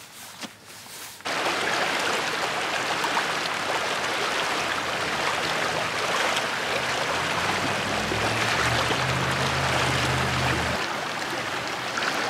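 Shallow creek rushing over rocks in a steady, even splash, cutting in suddenly about a second in. A low hum sits faintly under it in the second half and stops abruptly. Before the water, a few soft steps on grass.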